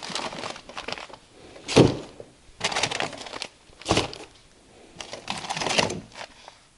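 Frozen paper-wrapped packages of pork being handled at a chest freezer and set into a cardboard box: butcher paper crinkling and rustling, with two hard thuds, about two seconds in and again near four seconds.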